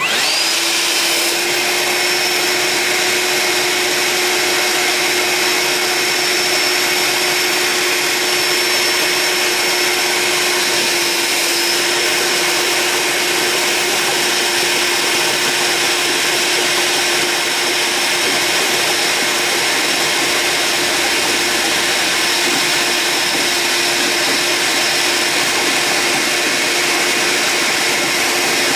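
Ryobi P770 18V cordless wet/dry vacuum switched on and running steadily, sucking up a bucket of water: a constant motor hum with a high whine over the rush of air.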